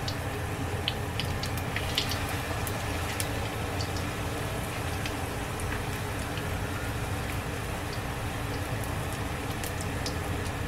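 Battered green chilies and tofu deep-frying in hot oil: a steady sizzle with scattered small pops and crackles.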